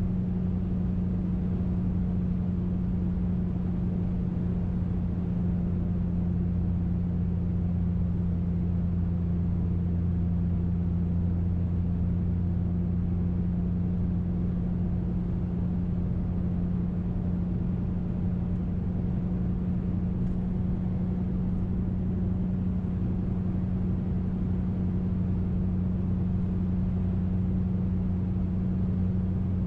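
2005 Mercury Grand Marquis 4.6-litre V8 with a muffler delete (cats into an H-pipe, no mufflers), heard from inside the cabin as a steady, even low drone at constant engine speed while cruising.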